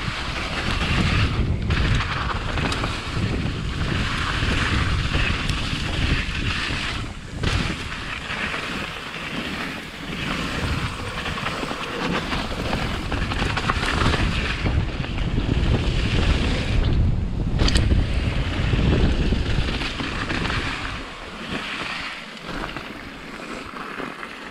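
Wind buffeting an action camera's microphone and a mountain bike's tyres rumbling over a dirt and gravel downhill trail at speed. The rumble dies down in the last few seconds as the bike rolls out onto the flat.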